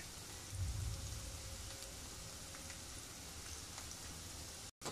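Sliced onions frying in hot oil in a karai for beresta: a steady low sizzle with scattered small crackles. The sound drops out for an instant near the end.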